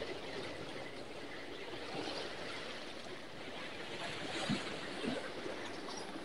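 Steady wash of small sea waves on the rocks, with a couple of soft knocks about four and five seconds in as a fish is unhooked by hand.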